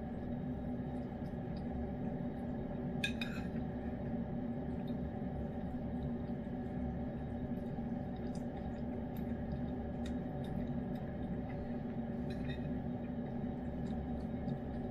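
A spoon clicking and clinking against a ceramic bowl while a cat eats from it, with one ringing clink about three seconds in and a fainter one near the end. A steady hum runs underneath.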